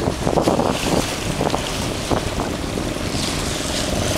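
Wind buffeting the microphone over choppy water, with waves splashing against the side of a small boat.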